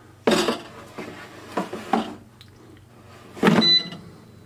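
Air fryer basket being handled with a few short clatters, then slid shut with a louder clunk about three and a half seconds in, followed by a short electronic beep from the air fryer's controls.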